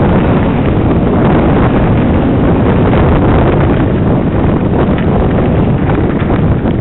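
Loud, steady wind buffeting a mountain biker's head-mounted camera microphone while riding along a gravel track, with faint clicks and knocks from the bike over the stones.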